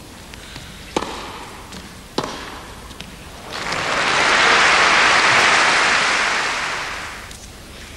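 Two sharp racquet strikes on a tennis ball about a second apart, then a crowd applauding: the clapping swells in about halfway through and fades away shortly before the end.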